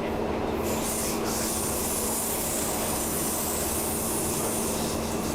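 Interior sound of a Class 319 electric multiple unit on the move: a steady low rumble with a constant hum. A strong hiss comes in under a second in, breaks off briefly, and stops just before the end.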